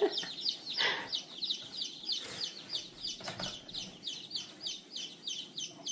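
A brood of day-old chicks peeping: a steady stream of short, high-pitched, falling chirps, several a second from many birds at once.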